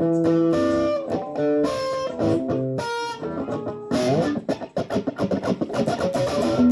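Rock and roll instrumental break: a guitar plays a run of single picked notes, which become quicker and busier from about four seconds in.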